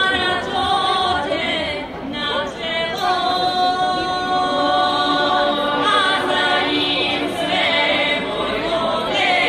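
A group of women singing a traditional folk song unaccompanied, several voices holding long notes and moving to a new note every second or two.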